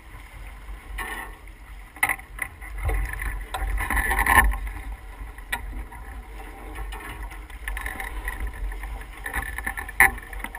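Water rushing along the hull of an S2 9.1 sailboat under sail, with wind rumbling on the microphone. Several louder surges of water noise come through, the biggest around four seconds in and a brief one near the end.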